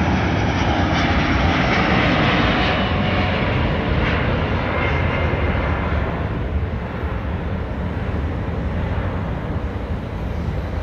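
Airbus A330-941 airliner climbing out after takeoff, its two Rolls-Royce Trent 7000 turbofans at takeoff thrust: a loud, steady jet rumble whose higher hiss fades from about six seconds in as the plane draws away.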